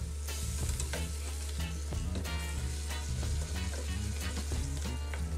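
Crab pieces sizzling in oil and curry paste in a pot while a wooden spoon stirs and scrapes them around, with a steady hiss of frying throughout.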